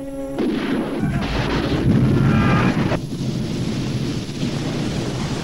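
Action-film explosion sound effects: a long, loud rumbling blast begins about half a second in, then an abrupt cut about three seconds in to a steadier rushing rumble.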